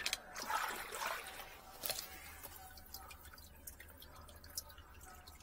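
Water dripping and splashing in an open sewer drain pit, with a sharp click about two seconds in and a few faint ticks as the drain-cleaning gear is handled.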